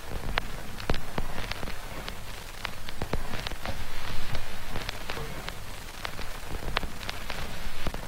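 Ambient noise soundscape: a steady hiss with irregular sharp crackles and clicks, several a second, over a low hum.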